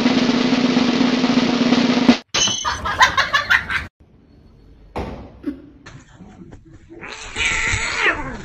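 Snare drum roll for about two seconds that cuts off suddenly. It is followed by a few short, scattered sounds, a quieter stretch, and mixed sound with gliding pitches near the end.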